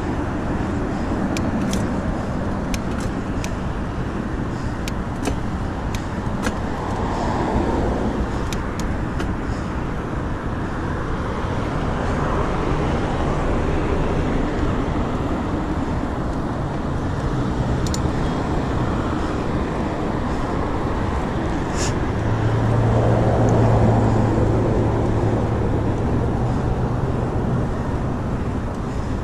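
Road traffic noise: cars passing on a busy road in a steady roar, with a few sharp clicks in the first several seconds. In the last third a low engine hum swells up as a vehicle goes by.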